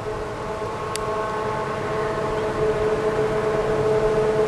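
Clyde/EMD diesel locomotives of an approaching grain train: a steady pitched drone with several overtones, slowly growing louder.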